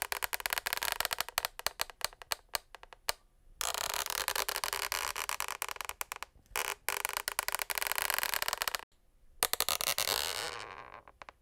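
Tapping and scratching on a parquet floor: fast separate clicks for the first few seconds, then long stretches of dense crackly scraping with short pauses between them.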